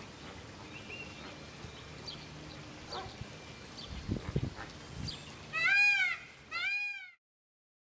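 A flock of flamingos calling: faint scattered calls, then two loud nasal calls about a second apart, each rising and then falling in pitch. The sound then cuts off abruptly.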